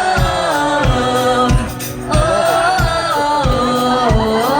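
Live pop music: a vocal melody sung on a wordless 'oh' over a band with a steady kick-drum beat about twice a second.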